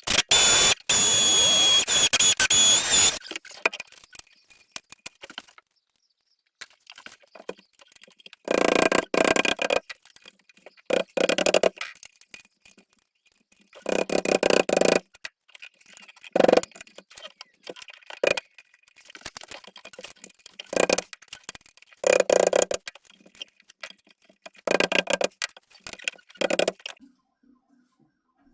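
Sped-up glazing work on a uPVC window frame: a loud noisy stretch at the start, then a string of short bursts of knocking and scraping as glass and beading are fitted.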